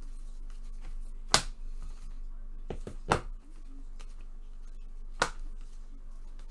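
Three sharp snapping clicks about two seconds apart, with a few lighter ticks just before the second, from trading cards and foil packs being handled during a pack opening, over a faint steady hum.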